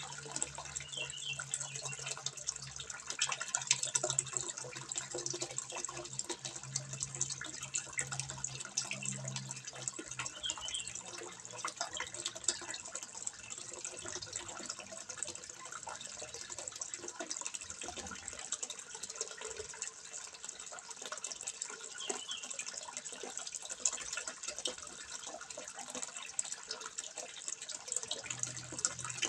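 Water trickling and splashing steadily into a fish pond, a continuous hiss dotted with small splashes and drips.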